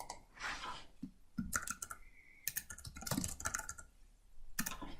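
Typing on a computer keyboard: irregular runs of keystrokes, with a short pause near the end before one last click.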